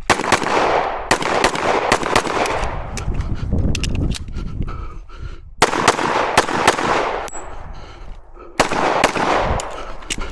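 Pistol shots from a 1911 Commander in .45 ACP fired in quick strings, each shot sharp with a ringing echo after it. There are pauses of about a second and a half around four seconds in and around eight seconds in, between strings.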